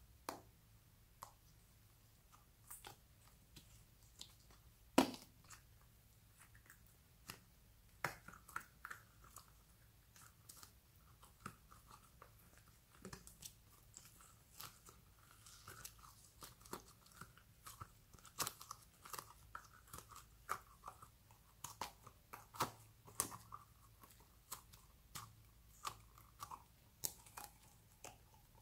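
Slime being squeezed and pulled apart by hand: faint sticky squelches and crackling clicks, with one sharper snap about five seconds in.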